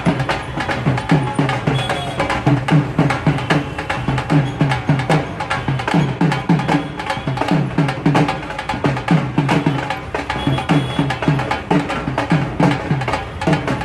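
Drum ensemble playing a fast, steady rhythm. Deep drum strokes drop in pitch, with sharp cracking strokes layered over them.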